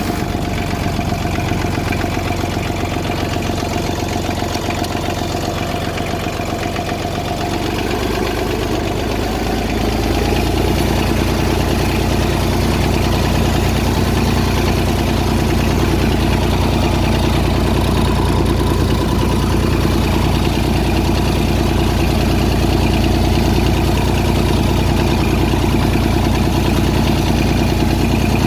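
McCormick D-324 tractor's diesel engine running, growing louder and fuller about eight to ten seconds in, then running steadily.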